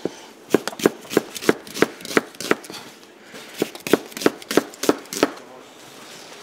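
Kitchen knife chopping onion on a wooden cutting board: sharp knocks of the blade through the onion onto the board, about three a second, in two runs with a short pause around the middle.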